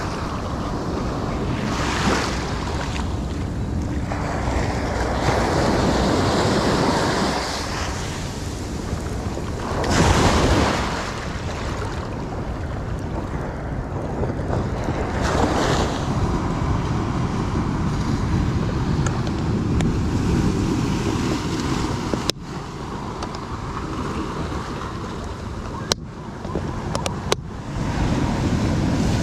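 Ocean surf breaking and washing up the beach, swelling and fading in waves, loudest about ten seconds in, with wind buffeting the microphone. A few sharp clicks come in the last quarter.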